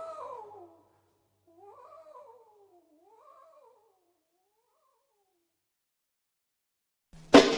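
A wavering, bleat-like cry sliding up and down in pitch, repeated by an echo that dies away over about three seconds. After a pause, a drum kit comes in loudly near the end.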